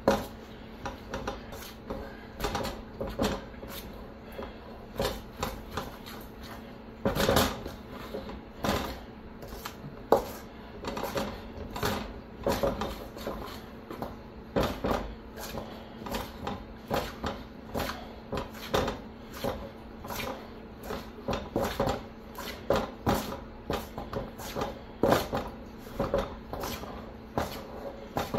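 Biscuit dough being mixed and squeezed by hand in a stainless steel bowl, with irregular knocks and clunks of the metal bowl about one or two a second.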